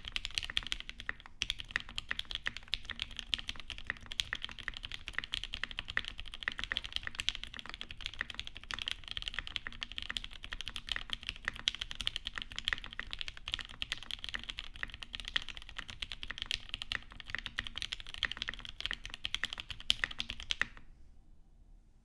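Fast, continuous typing on a custom mechanical keyboard with lubed Alpaca linear switches on an FR4 half plate in an aluminium 420.2 case, with GMK keycaps; the keystrokes stop abruptly about a second before the end.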